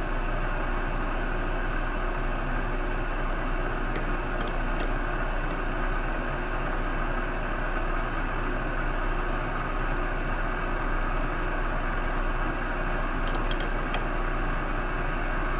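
Metal lathe running steadily at slow speed, about 52 RPM, with a two-wheel pressure-type knurling tool being clamped tighter against the turning part. A few faint light ticks come about four seconds in and again near the end.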